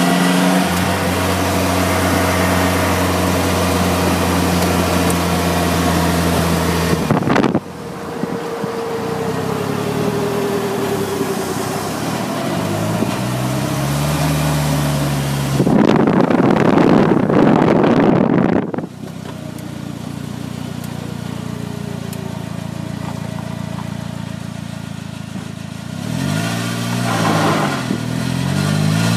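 Polaris Slingshot's four-cylinder engine running at road speed, then pulling harder with its pitch rising and falling through several gear changes near the end. About halfway through there is a loud rush of noise for about three seconds.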